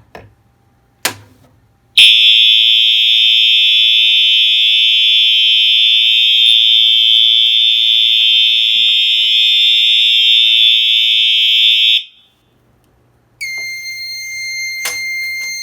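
Fire alarm horn sounding continuously and loudly for about ten seconds after a System Sensor 2151 smoke detector is set off with a test magnet, then cutting off abruptly. About a second later a steady high electronic beep tone starts, with a few clicks over it near the end.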